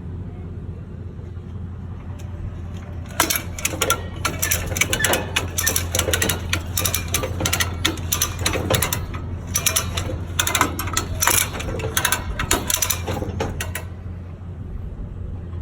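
Mechanical rattling and irregular clicking over a steady low hum. The clicks come thick for most of the middle and thin out near the end.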